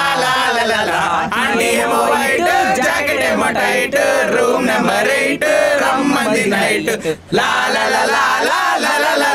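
A group of young men singing a song loudly together in chorus, with a brief break about seven seconds in.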